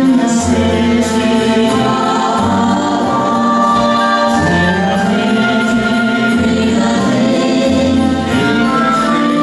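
Two voices singing a Christmas song together in long held notes, with instrumental accompaniment and a bass line that moves about once a second.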